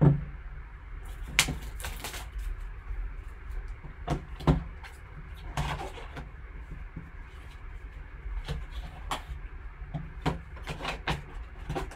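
Cardboard trading-card box being handled and opened: the box slid out of its sleeve and its cardboard insert folded open, with a sharp thump at the start, then scattered scrapes, taps and clicks.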